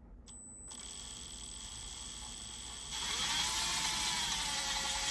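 Power drill on a low setting spinning the leather splitter's geared mechanism: a steady mechanical whir with gear whine. About three seconds in it steps up, rising in pitch and growing louder, then holds steady.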